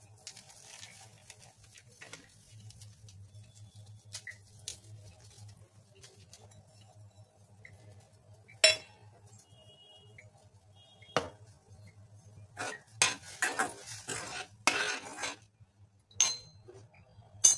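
Metal clinks and clanks on a stainless steel cooking pot while spices are stirred into it: a few separate sharp clanks, the loudest about halfway through, then a quick run of clinks and scrapes in the second half.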